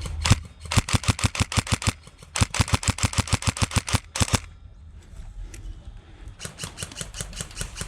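Airsoft electric rifle firing two rapid strings of shots, about ten a second, each lasting a second or two. Near the end a fainter, quicker string of shots follows.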